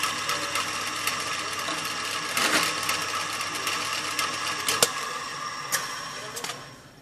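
Bench drill press running, its bit working into a clamped piece of steel angle iron: a steady motor whine with scattered sharp clicks and ticks. The motor dies away near the end.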